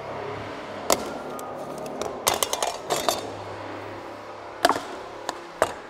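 COREtec Pro Plus luxury vinyl plank being scored with a utility knife and snapped by hand. It gives a run of sharp clicks and cracks, with a cluster about two to three seconds in and a few more single cracks near the end.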